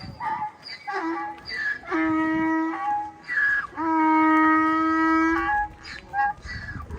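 A horn-like wind instrument blown in a series of notes: short blasts, some sliding up in pitch, then a steady held note of nearly two seconds in the middle, and short blasts again near the end.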